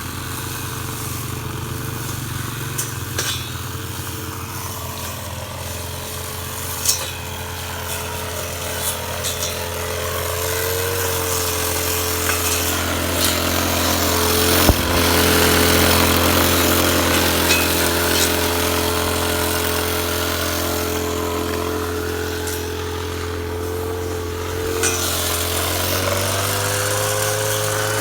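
Kiozit 253 brush cutter engine running steadily. It gets louder from about ten seconds in and eases off again after about twenty seconds, with a few sharp clicks.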